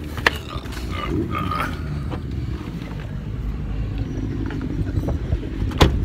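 Wind buffeting the microphone with a steady low rumble while a person climbs out of a car, and a car door shutting with a sharp thud near the end.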